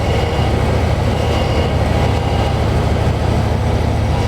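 Car engine idling steadily with a low drone, and a faint high whine from the power steering pump: a slight hum left after the air has been bled from the system.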